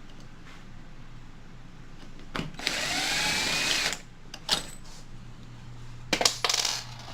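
Cordless drill-driver running for about a second and a half, its motor whine gliding in pitch as it backs out a door knob screw. A few sharp metallic clicks come before and after it.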